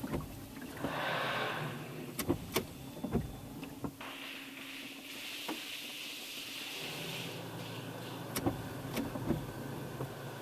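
A touchless LaserWash automatic car wash heard from inside the car: the high-pressure spray hisses against the body in waves, with scattered sharp knocks. A low steady hum joins about seven seconds in.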